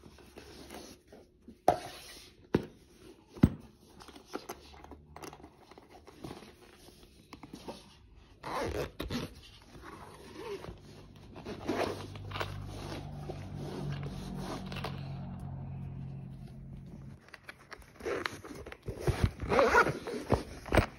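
Handling of a cardboard box and a fabric-covered hard-shell headphone carrying case, with several sharp knocks early on and scratchy rustling. A low steady hum sounds for a few seconds midway. Near the end comes a rapid scratchy run as the case's zipper is pulled open.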